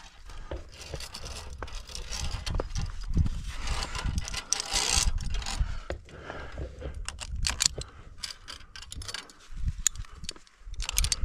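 Via ferrata lanyard carabiners clinking and scraping along a steel safety cable while a climber scuffs and rubs over the rock, with a low rumbling on the microphone. A quick run of sharp metallic clicks comes about two-thirds of the way through.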